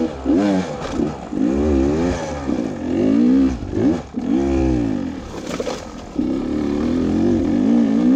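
Beta 300RR two-stroke dirt bike engine revving up and down over and over as the throttle is worked on tight single track, with a brief knock about five and a half seconds in.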